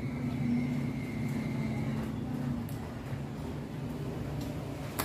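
Faint clicks of the fuel pump connector's plastic lock being pushed and worked loose by hand, with a sharper click near the end, over a steady low mechanical hum.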